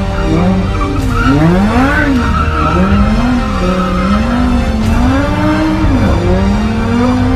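Car engine heard from inside the cabin, revving up and down in quick swells about once a second as the car drifts, with tyres squealing for a few seconds near the start.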